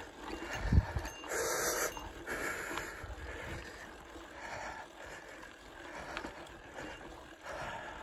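Mountain bike riding a dirt singletrack: tyre and trail rumble with wind on the bike-mounted camera's microphone, and rushes of noise coming and going about once a second. A low thump just under a second in, likely the bike hitting a bump.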